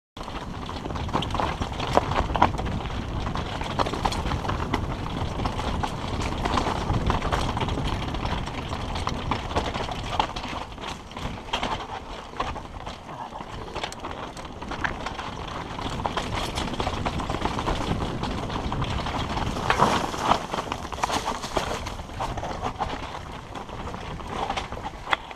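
Mountain bike descending a loose rocky trail: continuous rattling and clattering of the bike and tyres over stones, with many sharp knocks over a low rumble.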